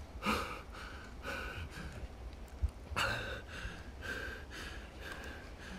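Quick, heavy breaths, about two a second, in two runs: one at the start and another beginning about three seconds in.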